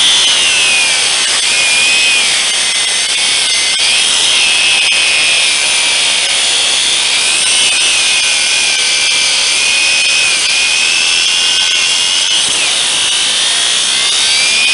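DeWalt angle grinder with a cutting disc cutting into a steel U-lock: a loud, steady high whine with grinding noise, the pitch sagging several times as the disc bites under load and then recovering.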